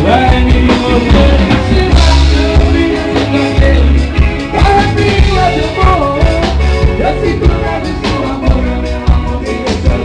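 Band playing an upbeat rock song: a singer over electric guitars, keyboard, bass and a drum kit keeping a steady beat.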